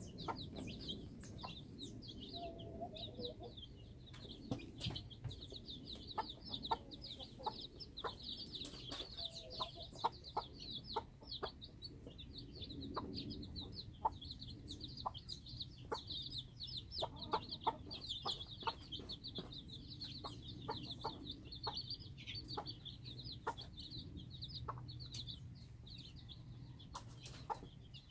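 A brood of chicks peeping continuously in high, overlapping cheeps, with the Cheonggye mother hen clucking low a couple of times. Scattered sharp ticks run through it.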